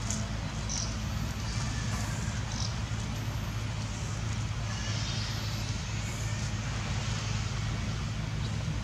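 A steady low motor hum under an even hiss, with no clear changes.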